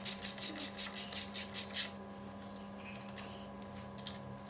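Ratcheting screwdriver clicking about five times a second as it backs out a bolt on an automatic transmission's valve body, stopping about two seconds in. A steady low hum continues underneath.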